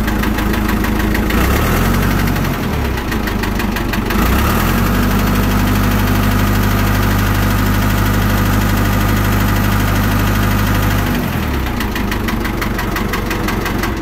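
John Deere 450's engine running while its oil pressure is checked, showing good oil pressure. Its speed shifts up and down between about one and a half and four and a half seconds in, holds steady, drops back just after eleven seconds, and the engine stops at the very end.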